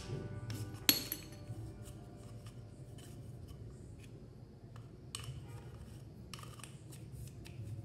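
Small parts clicking and clinking against the metal end of a photocopier fuser heat roller as a bushing and lock ring are fitted by hand. One sharp metallic click with a short ring about a second in is the loudest, and a few softer clicks follow later.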